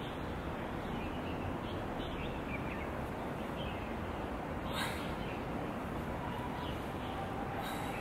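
Steady outdoor background rumble with short, faint bird chirps over it, and a single sharp tap a little after halfway through.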